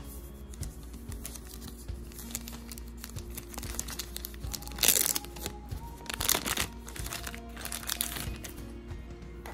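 Plastic packaging crinkling in several short bursts as a bagged clear plastic container is handled, the loudest about halfway through, over background music.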